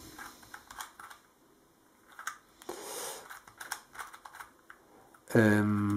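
Irregular plastic clicks of a magnetic Kilominx, a small twelve-sided twisty puzzle, as its faces are turned by hand one after another. Near the end a man's voice is briefly heard, louder than the clicks.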